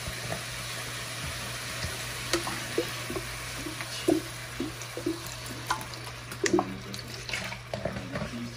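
Shrimp cooking in melted butter in a pan, a steady sizzle with scattered small pops and ticks. Liquid is poured in from a bottle partway through.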